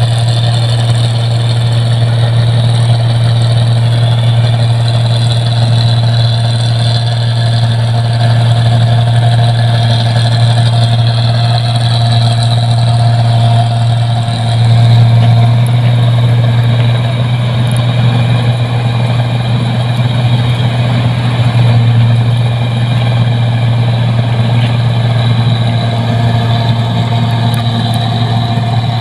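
Rice combine harvester's engine running steadily with a low, even hum. It swells briefly about halfway through and again a little later.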